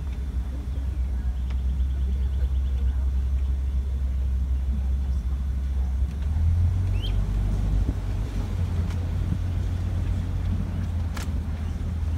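Safari ride truck's engine running as it drives along, a steady low rumble that steps up slightly about six and a half seconds in.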